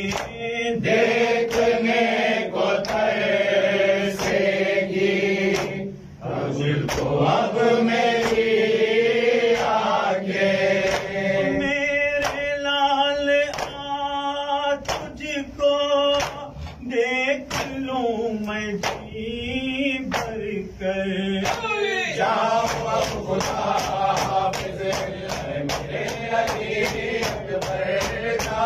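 Urdu Shia noha sung by male voices, a lead reciter with a group of men chanting along, kept in time by regular sharp slaps of hands beating on chests (matam). The slaps come faster over the last few seconds.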